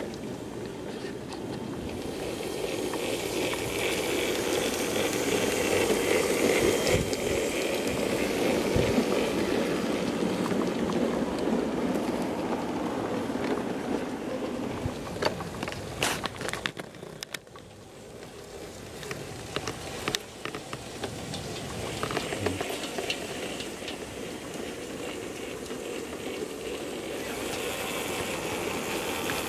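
Garden-scale live-steam model locomotive hauling freight wagons along the track: a steady hiss and running noise that swells as the train comes close, fades and dips, then builds again. A few sharp clicks, wheels over rail joints, come about halfway through.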